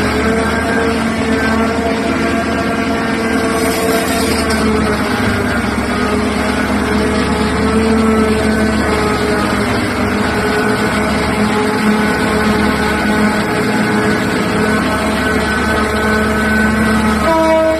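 Diesel engine of a Liebherr R9800 mining excavator running at a steady pitch.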